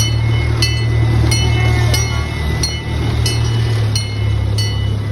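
Zoo train running on its track: wheels click over the rail joints about every two-thirds of a second over a steady low engine hum.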